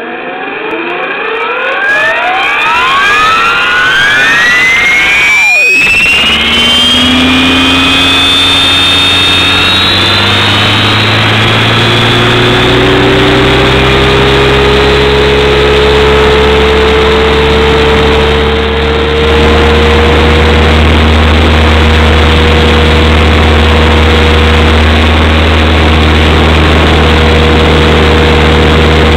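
Motors and propellers of a camera-carrying radio-controlled aircraft spinning up from rest: a whine that climbs steeply in pitch over the first ten seconds or so, then settles into a loud, steady run with a held tone as the craft lifts off.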